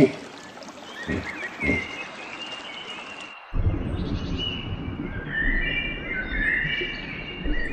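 Birds calling: scattered short high calls, with a couple of low thumps in the first part. About three and a half seconds in the sound cuts to a different recording, where a steady background noise carries many short calls overlapping one another.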